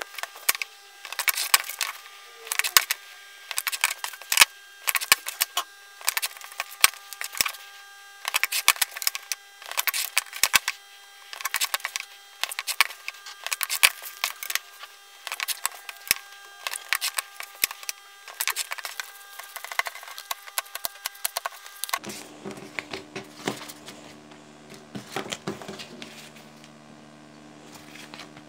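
Blade cutting through printed card stock along a steel ruler on a cutting mat: repeated sharp, scratchy cutting strokes, roughly one a second. About three quarters of the way in this gives way to quieter handling of the cut cards over a faint low hum.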